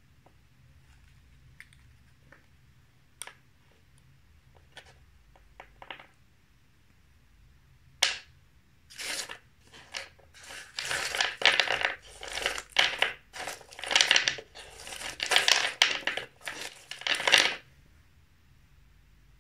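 A few light clicks and taps on a wooden cutting board, then one sharp click and, from about nine seconds in, a run of loud crinkling, crunching bursts as Mamba chewy candies and their paper wrappers are handled and cut.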